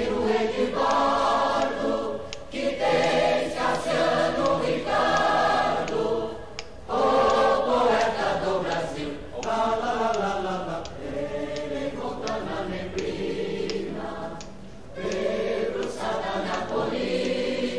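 A choir singing, in phrases with short breaks between them.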